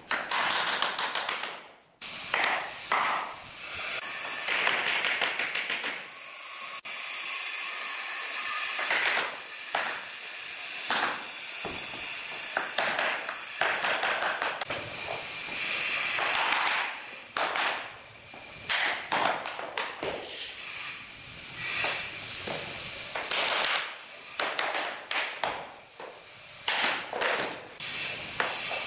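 Laminate floor planks being fitted, with occasional sharp knocks from a hammer driving a pull bar and tapping the planks' click joints together. Stretches of loud hiss come and go throughout.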